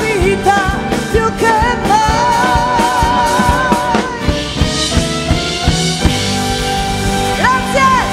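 Live pop-rock band playing with a woman singing long held notes with vibrato over drum kit, bass, keyboards and guitars. The voice drops out for a few seconds midway and comes back near the end.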